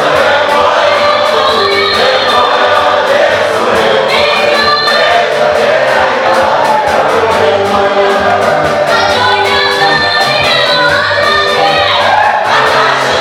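Choir singing an African gospel song with band accompaniment: layered voices over a steady bass line and a fast, even beat.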